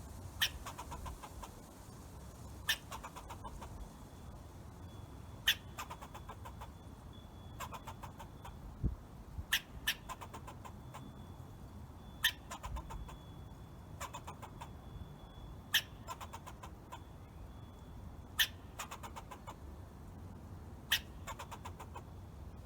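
Squirrel calling: a sharp chuck every two to three seconds, each followed by a quick rattling trill.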